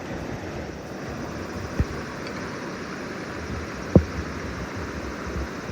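Mountain stream water rushing steadily, with two dull knocks: one a little under two seconds in and a louder one about four seconds in.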